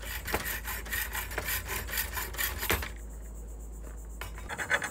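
Hacksaw cutting through the threaded end of a metal bolt clamped in a bench vise, in steady back-and-forth strokes of about two a second. The sawing eases off about three seconds in and picks up again, louder, near the end.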